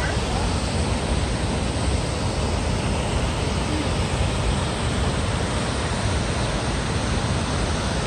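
Wide waterfall plunging into a river: a loud, steady rush of falling water, even and unbroken, heaviest in the low end.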